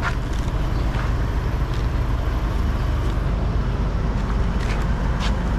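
Diesel truck engine idling steadily, a low rumble, with a few faint clicks.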